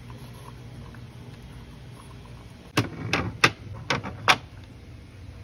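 Glass jars with metal lids being set down on a refrigerator shelf: five sharp knocks over about a second and a half, starting about three seconds in.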